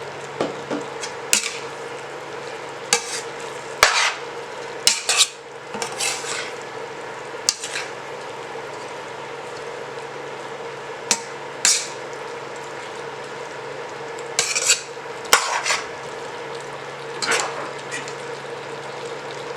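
A utensil stirring a pot of simmering Thai red curry, with scattered scrapes and knocks against the pot at uneven intervals, over a steady hum.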